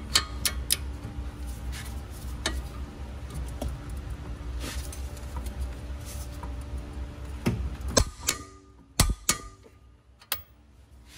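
Ratchet wrench clicking and steel tools clinking on the front suspension as a control arm nut is tightened to torque: a string of sharp, irregular clicks, with a steady low hum underneath that drops away about eight seconds in.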